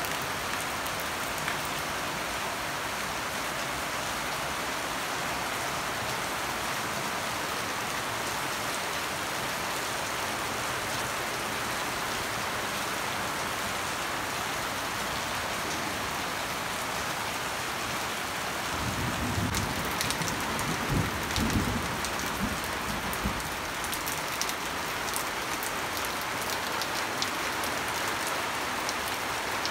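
Steady rain falling on garden plants and roofs. About two-thirds of the way through, a low rumble lasts a few seconds, with scattered drip clicks around it.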